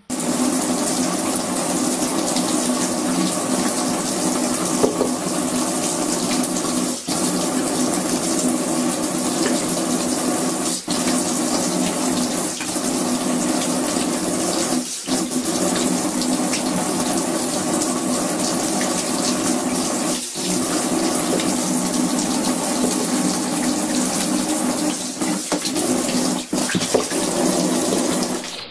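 Running shower water splashing into a plastic shower tray, a loud steady rush with a few brief breaks.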